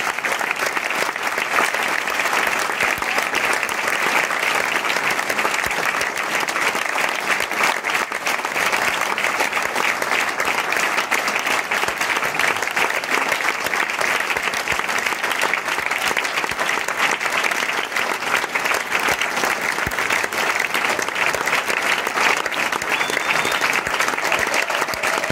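Theatre audience applauding, a dense, steady clapping that keeps up without a break.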